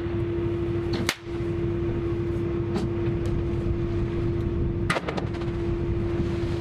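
A vessel's engine running steadily: a low rumble with a constant droning tone. A sharp click sounds about a second in, and another near five seconds.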